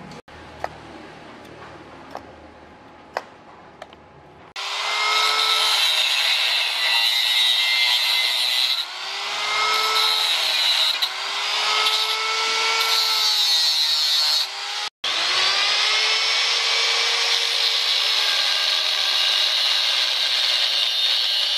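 Electric angle grinder with a cut-off disc cutting square steel tube; its whine sags in pitch as the disc bites into the metal and climbs back as the load eases, over and over. It starts about four and a half seconds in after a few light taps, and drops out briefly once around the middle.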